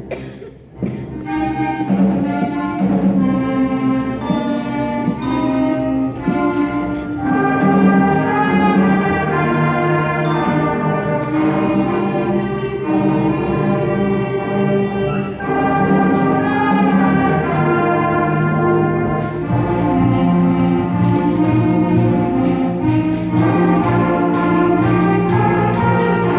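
Student concert band playing a piece together, clarinets and trumpets over sustained low brass chords. A brief break comes about half a second in, then the full band plays on.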